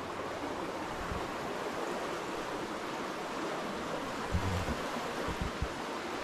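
Steady rushing of shallow stream water flowing through a culvert pipe, with a few short low thumps about a second in and twice more near the end.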